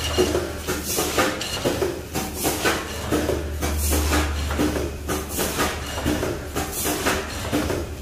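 Automatic two-hopper weighing and bagging machine running, packing about 20 bags a minute: a continuous clatter of short knocks and rattles over a steady low hum.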